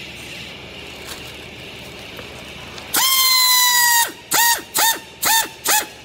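Pneumatic strapping tool tensioning a green plastic strap around a clothes bale. Its air motor whines steadily for about a second, starting about halfway through, then runs in four short bursts, each winding up and back down.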